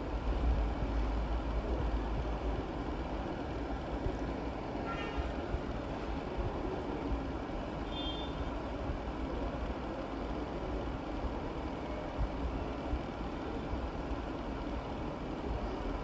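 Steady rumbling machine noise, strongest in the low end for the first two seconds, with a brief high chirp about five seconds in and another about eight seconds in.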